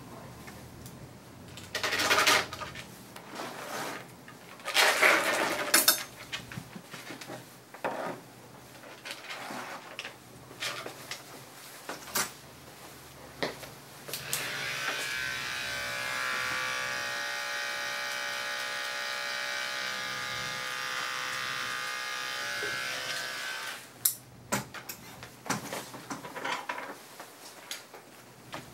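Andis Endurance detachable-blade dog clipper switched on about halfway through, running with a steady hum for about ten seconds, then switched off. Two brief loud noises come earlier, about two and five seconds in.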